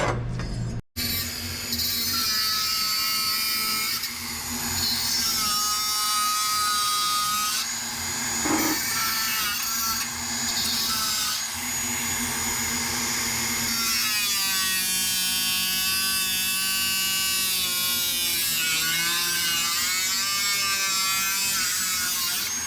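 Cordless power tool cutting into a steel Jeep body tub, its motor whine steady for stretches and wavering up and down with the load in the later part.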